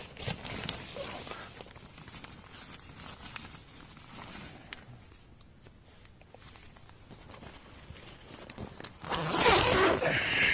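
Nylon tent door zipper being unzipped, with the tent fabric rustling under the hand. A louder zip lasting about a second and a half comes near the end as the door is pulled open.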